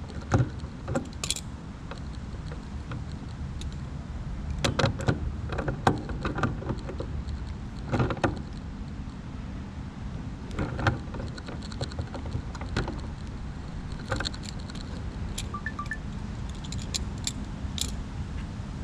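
Metal hand tools clicking, tapping and clinking against a model airplane engine as it is worked on by hand, in irregular bursts over a steady low rumble.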